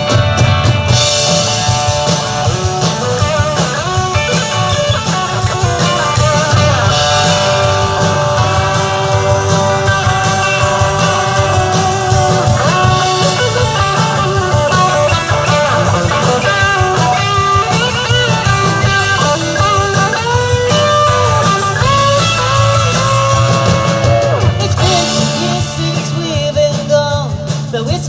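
Live rock band playing through PA speakers: electric guitar and drums with a woman singing.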